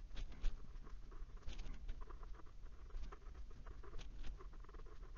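A TWSBI Classic fountain pen's medium steel nib writing on paper: soft scratching in short, irregular strokes with brief pauses between them.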